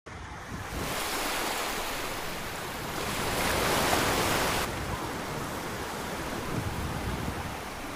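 Sea surf washing on a sandy shore, mixed with wind buffeting the microphone. About three seconds in the rush of noise swells louder, then drops away abruptly a second and a half later.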